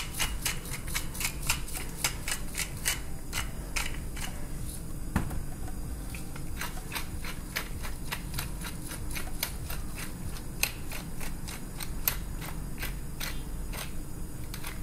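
Hand-held pepper mill being twisted over raw chicken, grinding in a fast run of sharp clicks, with a short lull about five seconds in.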